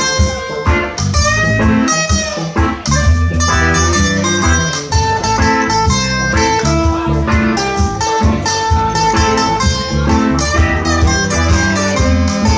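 Live reggae band playing an instrumental passage: guitar plucking and strumming over a steady bass line, with no singing.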